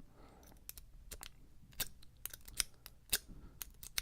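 A Peterson half-diamond lock pick zipping a Master Lock No. 5 padlock: the pick is raked out quickly across the pin tumblers, giving a run of short, sharp metallic clicks at irregular intervals.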